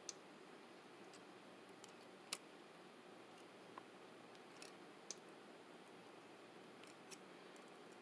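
Near silence with a handful of faint, scattered clicks as lineman's pliers twist three bare copper ground wires together into a pigtail.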